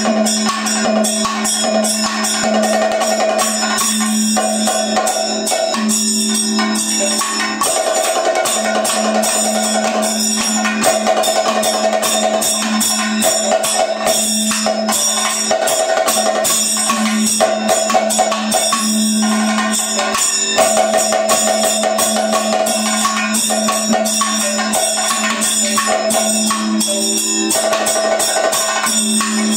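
Kathakali percussion accompaniment: chenda and maddalam drums played in dense, rapid strokes over a steady drone, with a sustained higher note that comes and goes.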